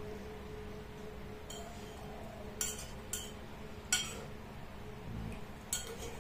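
Metal spoon clinking against a ceramic plate as food is scooped up: about five short, sharp clinks at uneven intervals, the loudest a little before the middle, over a steady low hum.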